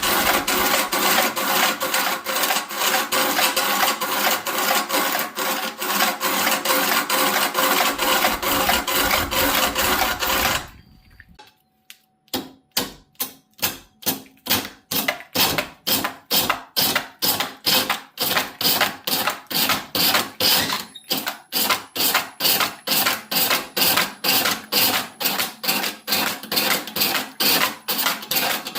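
A hand tool working wood in fast, regular back-and-forth strokes, about three a second. The strokes stop for about a second around the middle, then start again at the same pace.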